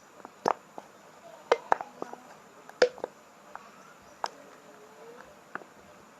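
Irregular sharp clicks and taps, about ten in six seconds, from containers and a stirrer being handled while salt goes into a slime mix.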